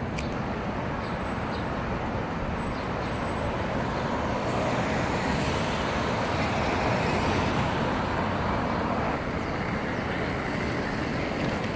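Steady city street traffic noise from passing cars.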